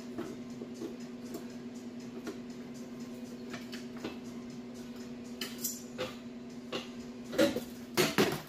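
Light metallic clinks and taps from the loosened Ford Escape exhaust over a steady hum, then three loud ringing metal clanks near the end as the exhaust section comes crashing down.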